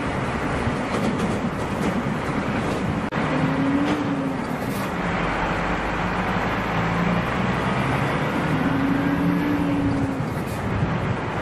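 Car driving uphill: the engine hums under load over steady tyre and wind noise, heard from inside the car. The engine's pitch rises and falls twice.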